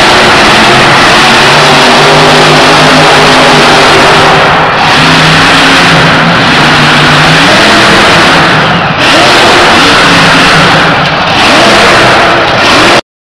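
Monster truck engines, supercharged big-block V8s, revving hard and loud, their pitch rising and falling as the trucks drive and wheelie. The sound cuts off suddenly near the end.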